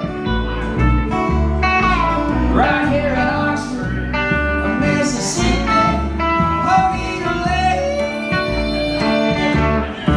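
A small blues band playing live: electric guitar, upright bass and acoustic guitar, with the bass walking steady low notes under guitar lines.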